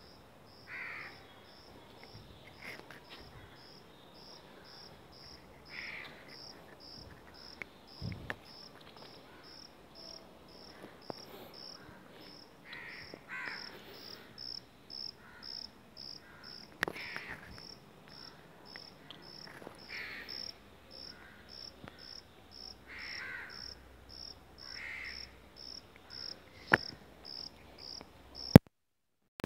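A cricket chirping steadily in short high pulses, about two to three a second. Some brief louder calls come in lower down every few seconds, and a couple of sharp clicks sound near the end.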